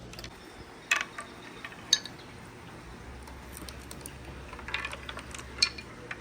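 Glass marbles clacking against the wooden track pieces of a marble run: a handful of separate sharp clicks, about four loud ones, spread over a few seconds, above a faint steady background.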